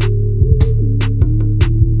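Background music: a beat with a heavy, steady bass line and sharp drum hits about twice a second.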